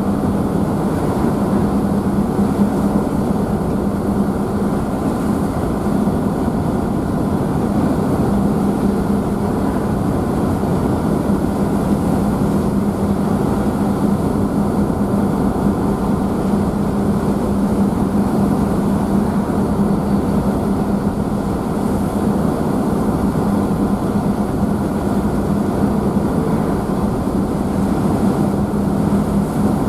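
Car ferry's engines running with a steady low hum, under the churning wash of water in its wake, heard from the rear deck.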